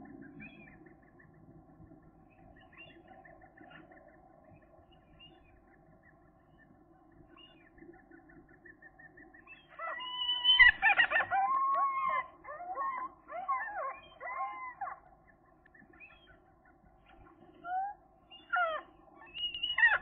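Gull calling. About halfway through comes a loud series of calls that bend up and down in pitch and lasts about five seconds. A few single calls follow near the end.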